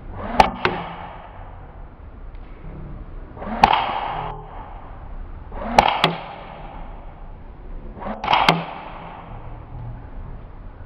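Four single shots from a battery-powered airsoft electric gun (AEG), about two to three seconds apart. Each is a sharp crack inside a short rushing swell, and some are doubled by a second crack a split second later.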